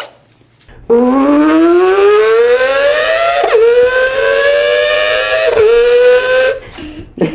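A person imitating a car accelerating through the gears with their voice: a pitched engine-like tone that climbs steadily, drops abruptly twice as if shifting up, and climbs again before cutting off.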